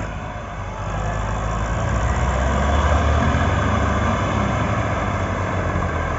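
Diesel engines of two farm tractors, a Massey Ferguson 385 among them, working under heavy load while pulling a trolley piled high with sugarcane. They grow louder over the first few seconds, then hold steady.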